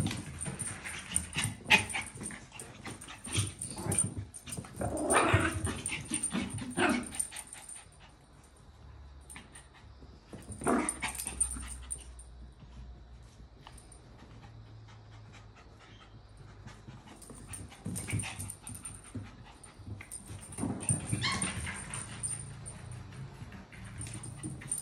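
Small dogs, a toy poodle among them, playing together: short bursts of dog vocalizing several times, amid scattered light clicks and knocks. There is a quieter lull around the middle.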